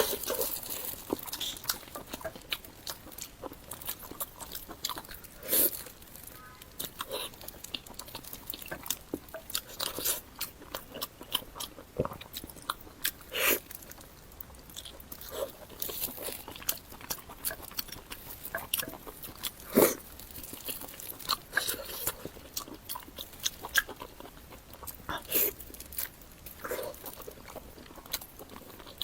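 Close-miked eating: biting and chewing with wet mouth smacks and irregular sharp crunchy clicks, a few louder bites standing out.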